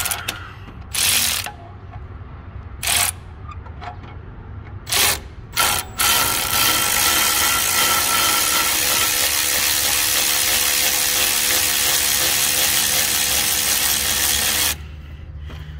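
Cordless battery ratchet driving a stud extractor on a broken bolt: four short trigger spurts, then a long steady run of about nine seconds that cuts off suddenly near the end.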